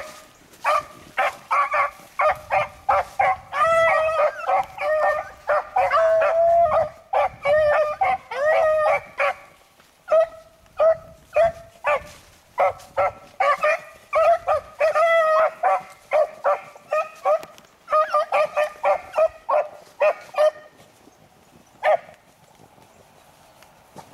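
Beagles baying on a rabbit's trail: several hounds give short, rapid, overlapping bays. The calls pause briefly about ten seconds in, thin out after about twenty seconds, and one last bay comes near the end.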